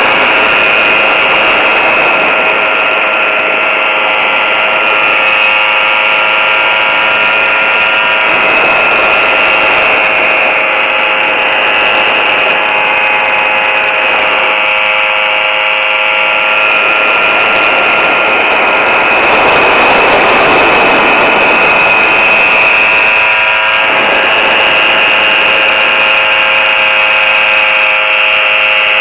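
Small engine of a motorised hang glider running steadily in flight: a constant, high-pitched buzzing drone, mixed with air rushing past. The rush of air swells briefly about two-thirds of the way through.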